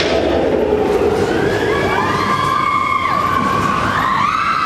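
Roller coaster train running through a dark tunnel: a loud, steady rumble of the cars on the track, with long wailing tones that slide up and down over it from about halfway in.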